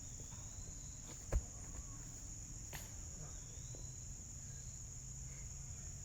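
Insects chirring outdoors in a steady high-pitched drone, over a low rumble of wind on the microphone, with a single short knock about a second and a half in.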